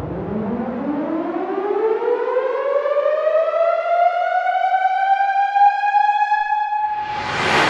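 Cinematic sci-fi riser sound effect: a synthesized tone with many overtones sweeps up in pitch like a siren over about six seconds, then holds. Near the end a noisy whoosh swells up and fades.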